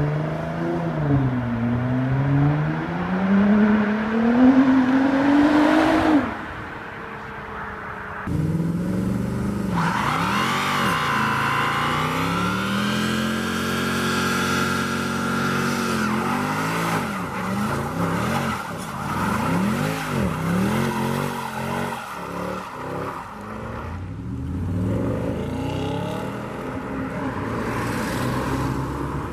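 Nissan GT-R twin-turbo V6 revving hard and climbing in pitch as it pulls away. After an abrupt break, a car doing a burnout and donuts: its engine revs up and down again and again over squealing tyres.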